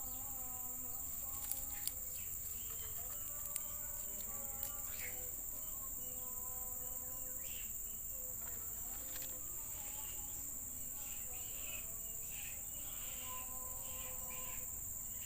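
Steady, high-pitched drone of rainforest insects, with a few faint sharp clicks in the first few seconds.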